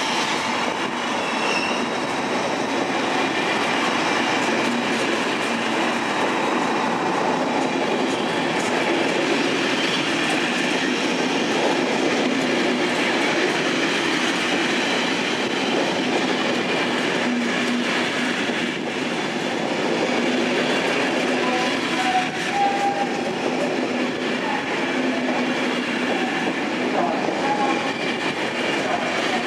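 Corail passenger coaches of an Intercités train rolling steadily past on the track, wheels rumbling with an occasional click over rail joints and a few short faint squeals in the second half.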